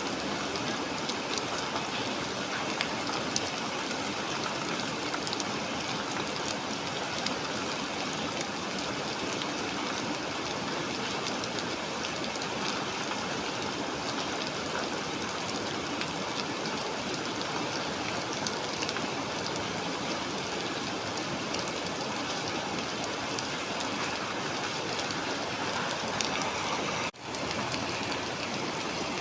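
Steady heavy rain of a storm, heard from inside a café, with fine scattered drip ticks. It cuts out for a split second near the end.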